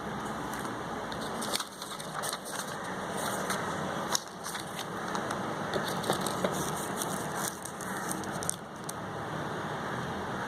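Packaging being handled: irregular clicks and crackles over a steady background hum.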